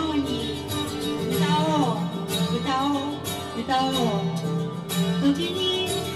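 Live acoustic music: a guitar strummed in a steady rhythm under a gliding melody line.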